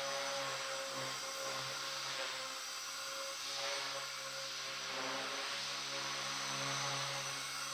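Align T-REX 250 micro electric RC helicopter running: a steady motor and gear whine with the rotor hum swelling and easing slightly.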